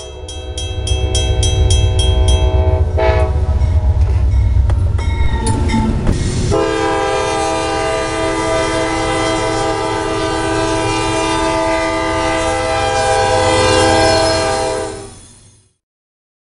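A train horn sounding a sustained chord over a heavy low rumble of a train. A rapid ringing of about four strikes a second runs through the first couple of seconds, the horn's chord shifts about six and a half seconds in, and the sound fades out near the end.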